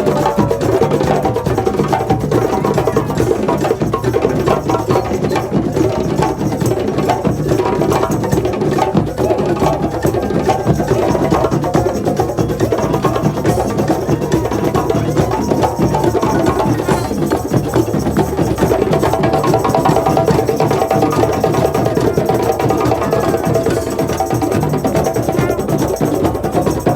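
A drum played in a fast, continuous run of sharp strokes that keeps a steady loudness throughout, with some held musical tones underneath.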